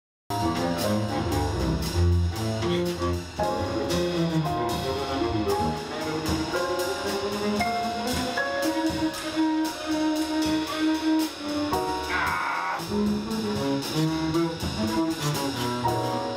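Live jazz combo playing: upright bass walking underneath, grand piano, and a drum kit keeping time on the cymbals, with a lead melody line on top. The music cuts in abruptly just after the start.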